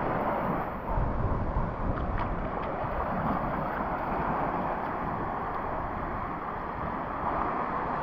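Small waves breaking at the shoreline and washing up over the sand, a steady rush of surf with low rumble from wind on the microphone.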